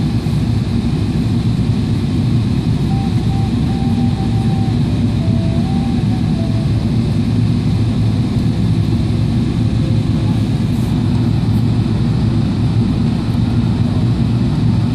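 Steady low rush of cabin noise inside a Boeing 777-300ER airliner in flight: airflow over the fuselage mixed with the drone of its GE90 engines.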